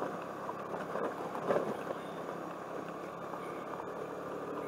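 Suzuki Burgman scooter riding over a gravel road: a steady mix of engine and tyre-on-gravel road noise.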